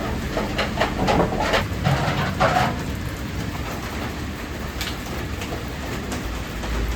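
Steady rain, with a few short clicks in the first few seconds and a low rumble rising near the end.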